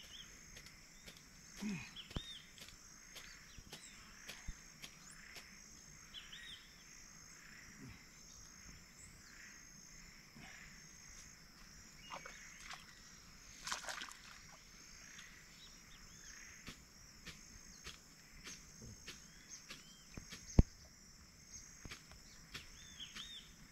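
Rural outdoor ambience: a steady high drone of insects with a pulsing chirp pattern, and short bird calls scattered throughout. A few knocks and rustles come from work close by, with one sharp knock about twenty seconds in.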